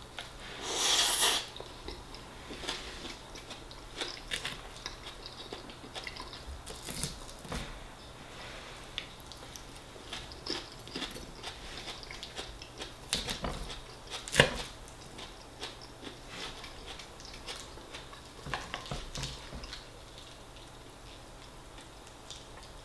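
Close-up eating sounds: a person biting and chewing mouthfuls of fish pie mash and lettuce salad, with the fork clicking and scraping on the plate. A loud bite about a second in, then scattered short clinks, the sharpest about halfway through.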